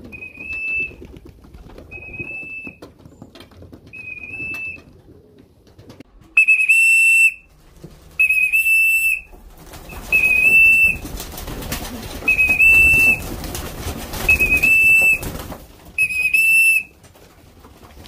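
A whistle sounded nine times in short, steady single-pitch notes spaced about every two seconds, faint at first and louder from about a third of the way in: the fancier's signal calling young racing pigeons in to trap for their feed. Rustling and scuffling noise runs under the middle notes.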